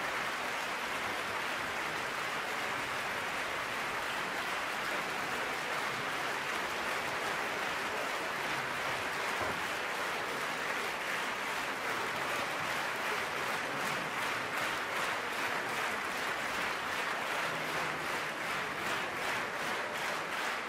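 Large theatre audience applauding: steady clapping that, about thirteen seconds in, falls into rhythmic clapping in unison, roughly two to three claps a second.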